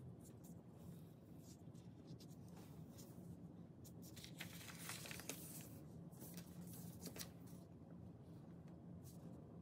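Faint rustling and crinkling of a sheet of drawing paper being folded over and pressed flat, in short bursts that are busiest about halfway through and again around seven seconds in.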